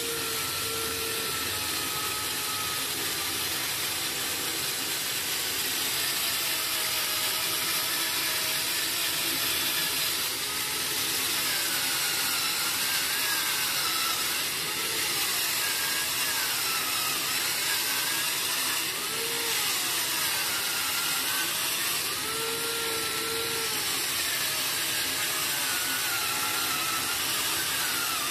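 Handheld electric coconut scraper running at its slow setting, its stainless steel dome cutter grating the flesh out of a coconut half: a steady motor whir with a scraping hiss, the motor's pitch wavering as the cutter bites into the flesh.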